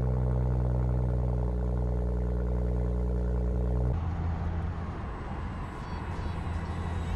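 BMW M135i's turbocharged straight-six idling steadily at the tailpipe. About four seconds in it switches abruptly to the low rumble of engine and road noise heard inside the cabin at motorway speed.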